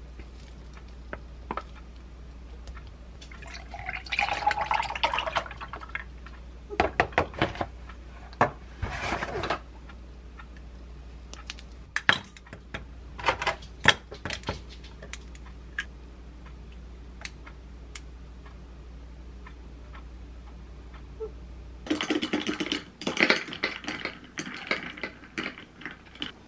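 Small food-preparation sounds: light clicks and taps of nuts and dishes, a packet rustling a few seconds in, and near the end a drink in a glass being stirred with a straw.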